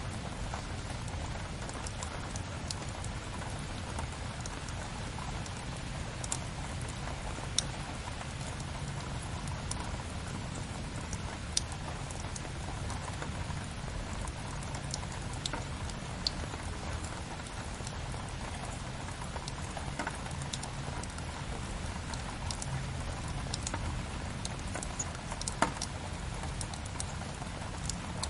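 Steady rain hiss layered with the occasional sharp crackle and pop of a wood fire, with a few louder pops standing out.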